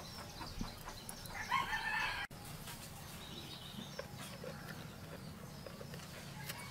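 A rooster crowing once, about a second in, lasting about a second before it cuts off abruptly, over a low steady hum.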